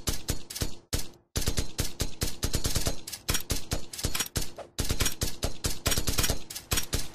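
Several semi-automatic .22 rimfire rifles firing rapid shots at once, many sharp cracks a second overlapping, with a brief pause about a second in.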